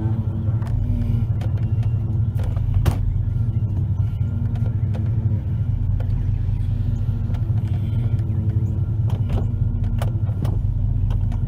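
Chevy 454 big-block V8 idling steadily, with a few sharp clicks or knocks over it, the loudest about three seconds in.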